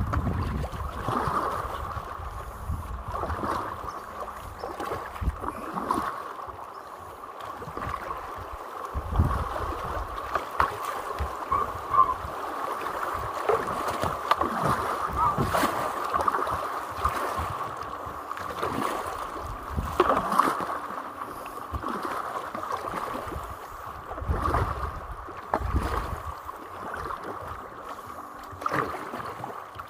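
Shallow river current rushing around an inflatable packraft, with a double-bladed paddle dipping and splashing stroke after stroke.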